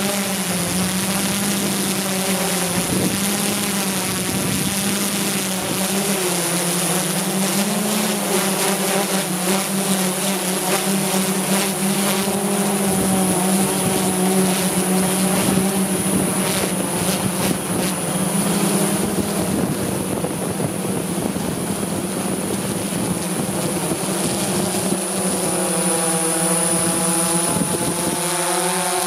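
Camera drone's propellers and motors humming steadily close to the microphone, with a high whine above. The pitch wavers slightly as the drone manoeuvres and shifts near the end as it comes down.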